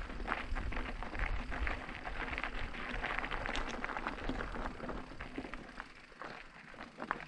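E-mountain bike riding over a rough surface: tyre noise and frame rattle with many small clicks, and a low wind rumble on the microphone that eases off after a few seconds.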